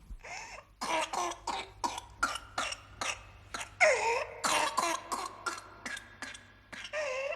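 A child's whooping-cough coughing fit: rapid runs of short coughs, about four a second, broken by strained, high-pitched drawn-in breaths. This is the paroxysmal cough of pertussis.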